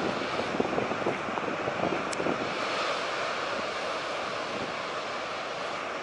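Steady roar of the big-wave surf at Nazaré, with wind buffeting the microphone in gusts during the first second or so.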